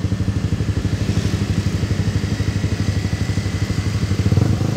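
Motorcycle engine running steadily under way, its exhaust pulsing evenly; it swells briefly louder near the end.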